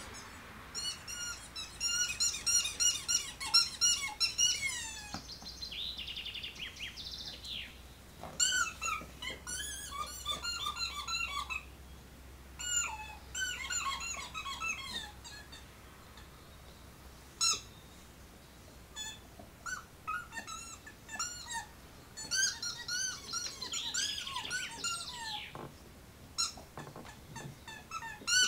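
Dog's squeaky toy squeaking over and over in quick runs of short, high squeaks, with brief pauses between the runs.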